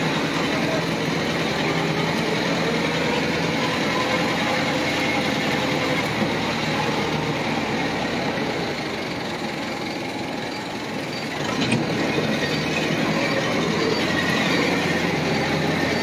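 Auto-rickshaw engine running steadily as the rickshaw drives, heard close up from inside its open cab. The noise eases briefly, then a short knock comes about twelve seconds in.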